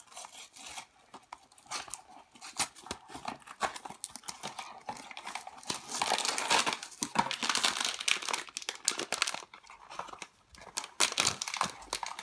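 A small cardboard box handled and opened by hand, with light scratching and tapping. About halfway through, a crinkly blind bag starts crinkling loudly as it is pulled from the box and handled, and crinkles again near the end.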